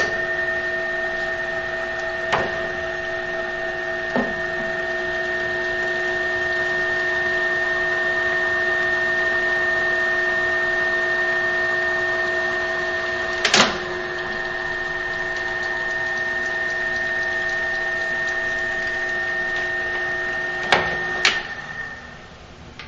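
Drill press running a nine-spindle multiple-spindle drilling head at its slowest speed, drilling nine holes through HDPE plastic. It gives a steady whine made of several tones, with a sharp clunk about halfway through and two more shortly before the whine stops near the end.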